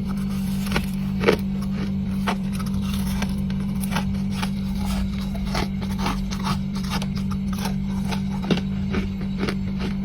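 Freezer frost being chewed: a run of irregular, sharp crunches over a steady low hum.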